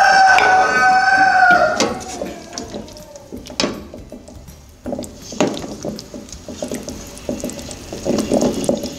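A squeal lasting about two seconds and dropping slightly in pitch, then a few sharp knocks and some scraping of a wooden spoon against a cooking pot as cooked pork pieces are lifted out of the broth.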